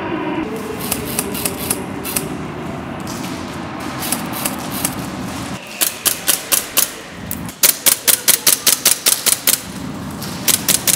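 Airsoft guns firing: scattered shots, then quick strings of rapid shots at about five or six a second, in the middle and again near the end.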